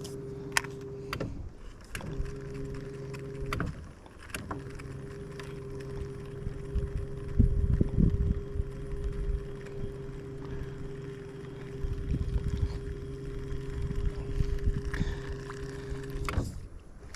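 Electric trolling motor on a small fishing boat humming steadily, switched off briefly twice in the first few seconds and stopping near the end, as the boat is held against the river current. Scattered sharp clicks and knocks, and a low rumble around the middle.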